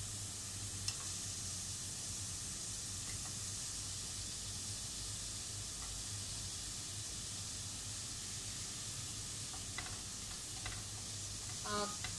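Zucchini slices sizzling steadily on a hot ridged stovetop grill pan, with a few light clicks as more slices are laid down near the end.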